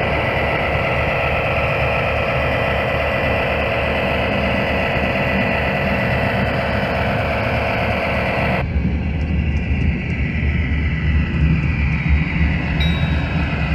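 Diesel locomotive engine sound from passing HO-scale Burlington E-unit passenger locomotives: a steady low rumble with a hissing layer on top that cuts off abruptly about nine seconds in. A bright, chime-like ringing starts near the end.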